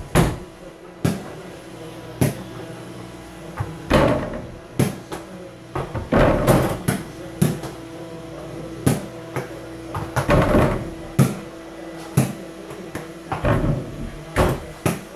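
Mini basketball repeatedly striking an over-the-door hoop's backboard, rim and the door it hangs on: a dozen or so irregular knocks, several with a short rattle of the hoop and door after them.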